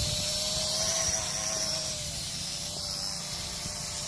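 Small drone's propellers buzzing in flight, a steady hum that wavers slightly in pitch, over wind rumbling on the microphone.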